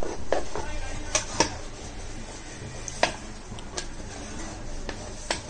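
A rolling pin rolls out a ball of roti dough on a round metal board. It gives irregular clicks and knocks as the pin and board shift, about eight in all, the loudest in the first second and a half.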